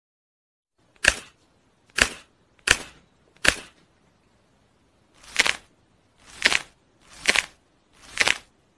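Eight sharp cracks, about one a second, with silence between. There are four crisp ones, a short pause, then four slightly longer ones. They are the sound of a man's neck and back being cracked as another man twists his head and shoulders.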